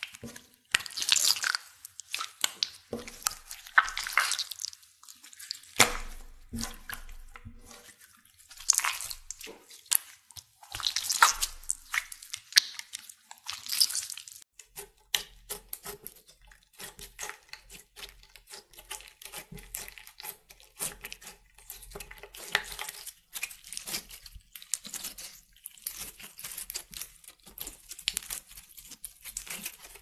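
Hands squeezing and kneading slime: wet squelching and crackling in repeated swells. From about halfway, fingertips pressing a white, foamy slime give fast runs of small crackles and pops.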